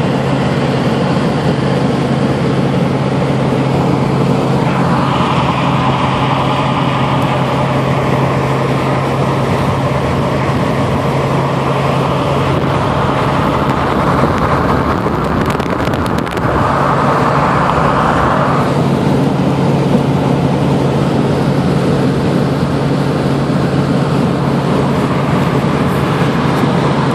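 Inside a pickup truck's cab cruising at highway speed: a steady drone of engine and tyre road noise with a low hum. About halfway through the hum briefly drops out under a short scuffle of rustling and clicks.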